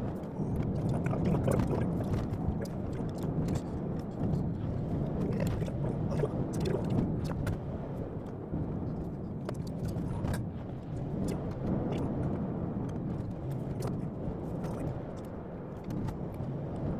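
A car's road and engine noise: a steady low rumble with many short clicks and knocks scattered through it.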